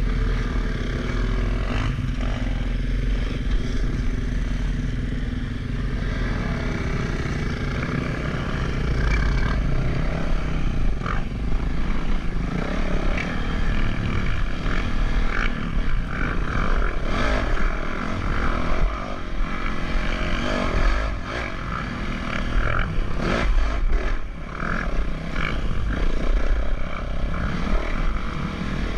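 A vehicle in motion: a steady low rumble with scattered short knocks and rattles.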